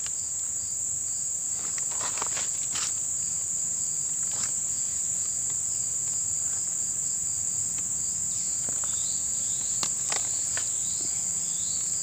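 Steady high-pitched buzzing of forest insects, with a few light clicks and rustles of leaf litter scattered through it.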